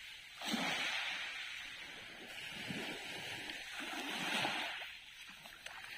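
Small waves washing onto a pebble beach, swelling about half a second in and again around four seconds in.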